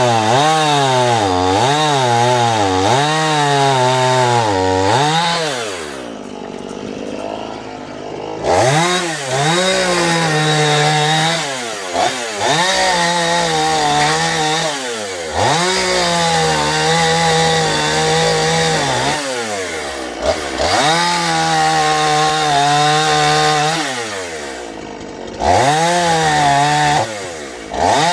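Dnipro 42 two-stroke chainsaw cutting poplar with a dull chain. The engine speed sags and recovers again and again as the chain bites. About six seconds in it drops to idle for a couple of seconds, then goes back to long cuts under load.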